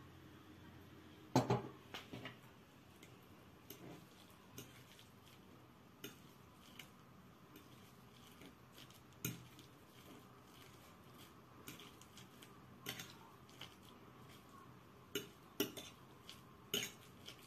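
Metal fork clinking and scraping against a ceramic plate while mixing mashed potatoes with milk: irregular taps, the loudest about a second and a half in and a cluster near the end.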